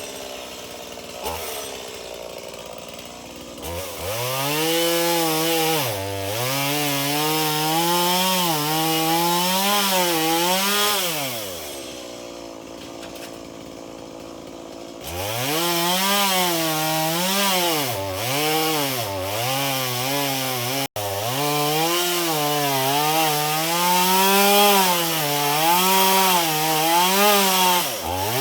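Two-stroke chainsaw idling, then revved up and cutting into a tree trunk in two long spells, starting about four seconds in and again about fifteen seconds in. While it cuts, its pitch dips and recovers as the chain bogs under load, and it drops back to idle between the cuts.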